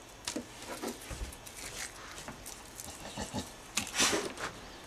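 Shells being pulled off raw easy-peel shrimp by hand: soft, wet crackles and clicks of shell tearing, with a louder rustle about four seconds in.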